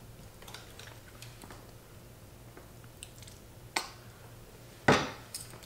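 Close-miked chewing with faint small mouth and food clicks, while sauce is squeezed onto rice in a foam take-out container. A sharp knock about five seconds in is the loudest sound.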